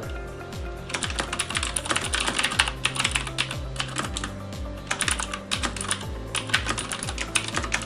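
Fast typing on a mechanical keyboard with clicky Cherry MX Blue switches: a dense, uneven run of sharp key clicks that starts about a second in.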